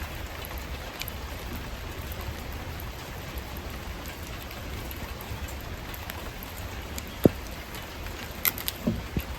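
Wood fire crackling: a steady hiss with scattered small pops, one sharp loud pop about seven seconds in, and a few more near the end.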